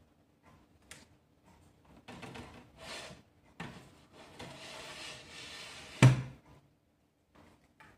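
Rustling and scraping handling noises, ending in a single sharp knock about six seconds in.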